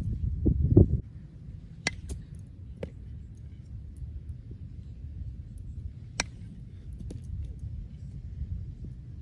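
Wind rumbling on the microphone, strongest in the first second, with a few faint sharp clicks scattered through it.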